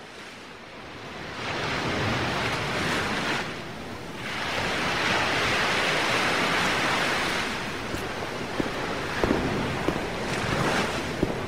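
Ocean surf: waves washing in as two long swells of noise, the second the louder, then a lower steady wash with a few faint clicks near the end.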